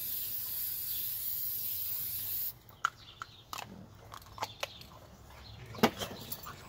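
Aerosol spray paint can hissing steadily as paint is sprayed, cutting off abruptly about two and a half seconds in. Then scattered clicks and knocks of the can being handled, with a louder knock near the end as it is set down on the metal table.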